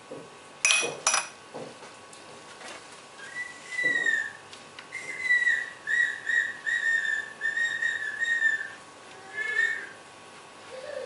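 Two sharp clicks about a second in, then a person whistling a tune: a run of clear, slightly wavering notes for about five seconds, and one more short whistle near the end.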